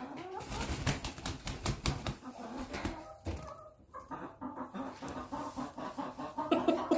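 A young chicken clucking, its calls louder near the end, among scratchy clicks, rustles and a few low thumps as it moves and pecks at the floor.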